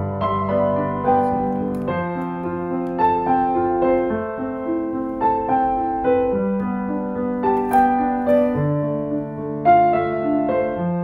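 Slow solo piano piece, new notes and chords struck about once a second and left to ring over held bass notes.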